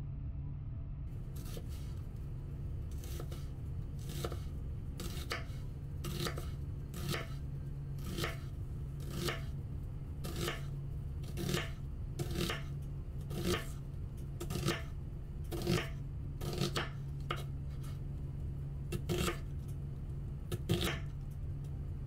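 Chef's knife slicing a red onion into thin strips on a wooden cutting board: a steady run of knife strokes cutting through and knocking on the board, about one to two a second, starting a few seconds in.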